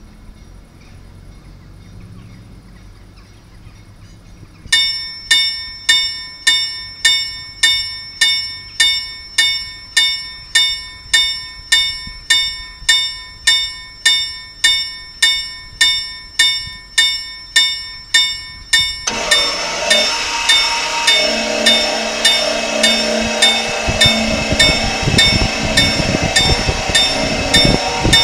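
An LM Ericsson KLD-43 mechanical level-crossing bell starts ringing about five seconds in, striking about twice a second. About two-thirds of the way through the ringing becomes louder and denser, and a low rumble joins near the end.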